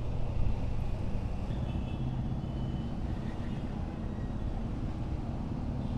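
Motorcycle running through city traffic, a steady low engine and road rumble with wind noise. A few faint high horn-like tones sound briefly about two seconds in.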